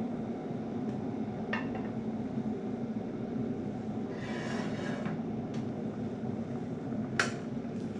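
A glass oven dish set down into a metal roasting tin for a bain-marie, with a short scrape about halfway through and a sharp click near the end, over a steady low rumble.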